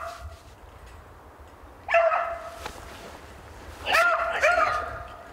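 A beagle baying on a hare's trail in short, sliding calls: one right at the start, one about two seconds in, and two more close together around four seconds in.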